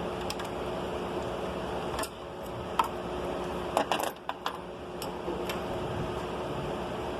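Sharp metallic clinks of tools and parts being handled, several in quick succession about four seconds in. Under them runs the steady hum of the Suburban's 5.3-litre V8, being checked for a misfire.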